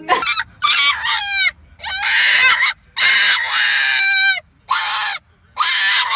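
A dog vocalizing in about six high, drawn-out whining howls in a row. Each call wavers and drops in pitch at its end.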